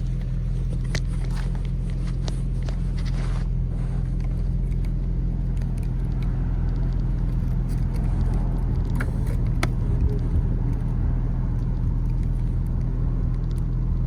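Steady low hum of an idling car engine, with a few light clicks and taps of parts being handled.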